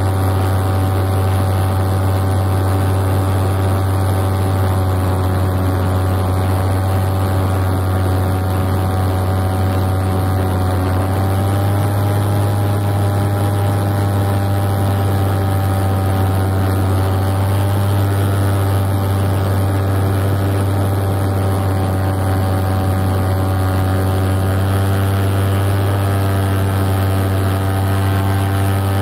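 Paramotor's backpack engine and propeller running steadily in flight, with a slight rise in pitch about eleven seconds in.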